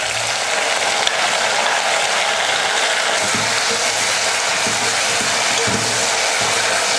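Chopped tomatoes sizzling steadily as they fry in hot oil with garlic, green chillies and curry leaves, stirred with a wooden spatula in a pot.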